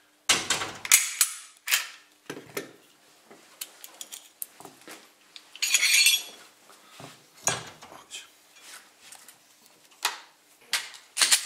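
Glock pistol being field-stripped by hand: a string of sharp metallic clicks and clacks from the slide, takedown lever and magazine. About six seconds in there is a longer metal-on-metal sliding scrape.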